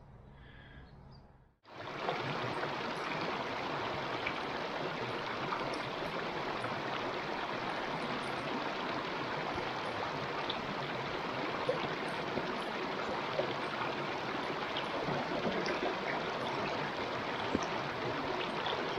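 Small river rushing and splashing over a rocky step and rock slabs: a steady rush of running water that starts suddenly about two seconds in, after a faint opening.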